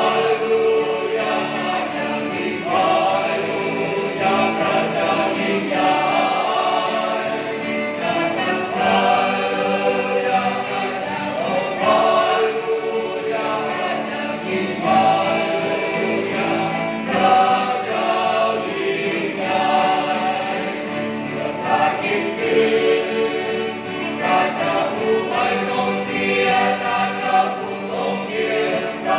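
A small mixed group of men and women singing a hymn in Thai together, accompanied by a strummed acoustic guitar.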